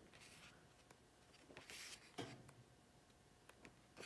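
Faint rustling of a softcover book's pages being turned, the clearest swish about halfway through, followed by a soft tap.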